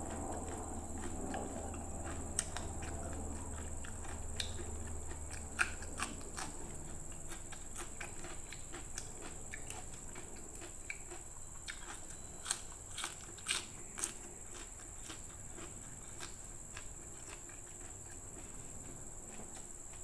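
Close-miked eating sounds: scattered sharp clicks and crunches of chewing and of hands handling food and leafy greens, with a cluster of louder clicks about two-thirds of the way through, over a steady high hiss.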